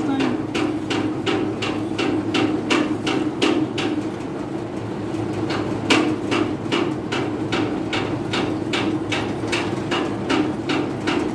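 Cow being milked by hand: jets of milk squirting from the teats and hitting the inside of a small steel pail in a regular rhythm, about three squirts a second, thinning out briefly near the middle. A steady low hum runs underneath.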